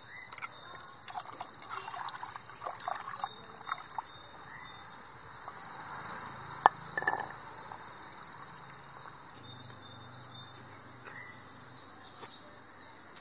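Hands washing small shallots in water in a clay pot: splashing and trickling water with light clicks and knocks of the bulbs, densest in the first few seconds, and one sharp click about six and a half seconds in.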